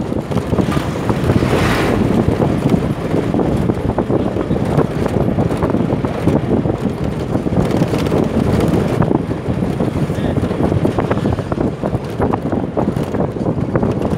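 Steady running noise of a moving vehicle, with wind buffeting the microphone through an open window and frequent small rattles and knocks.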